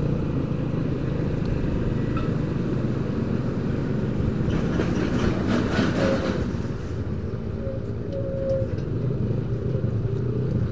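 Motorcycle engine running steadily while riding in traffic, with road noise.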